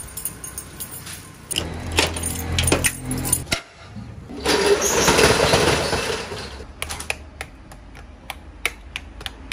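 Metal jangling and clattering, then a loud rattling rush lasting about two seconds in the middle, followed by a run of sharp clicks.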